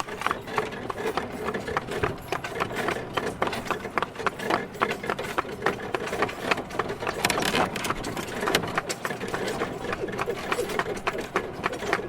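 Horse walking: hooves clopping one after another in an uneven run, several knocks a second, with no pause.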